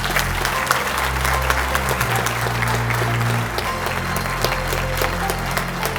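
Audience applauding with dense, steady clapping, over background music with a sustained low bass line.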